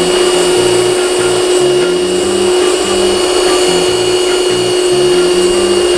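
Electric stand mixer running steadily, its beaters creaming butter, eggs and brown sugar into a cake batter in a steel bowl, with a constant motor hum and a thin high whine.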